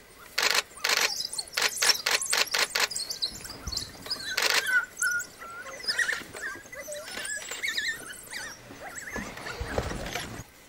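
African wild dogs twittering: many short, wavering, high squeaks as the pack crowds around a pup. A quick run of sharp clicks comes in the first few seconds.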